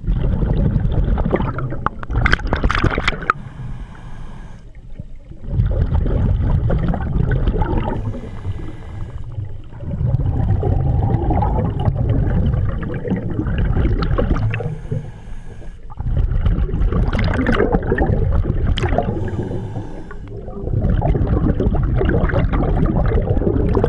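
Scuba diver's exhaled bubbles rumbling and gurgling past the helmet-mounted camera housing in long bursts about every five seconds. Between bursts there are short, quieter gaps while the diver breathes in through the regulator.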